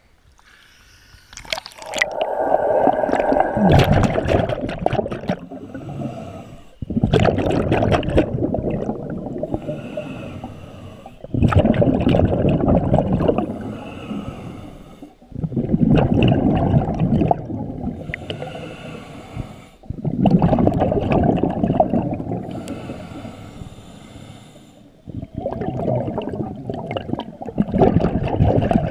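Scuba diver breathing underwater through a regulator: each exhale sends a loud rush of bubbles past the camera, six times, about every four and a half seconds, with quiet inhales between.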